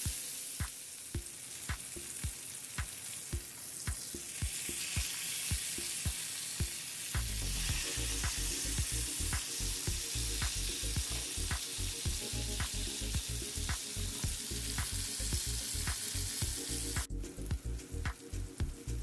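Bone-in ribeye steaks sizzling and frying in hot fat in an electric skillet, a steady hiss. Background music with a steady beat of about two ticks a second plays under it.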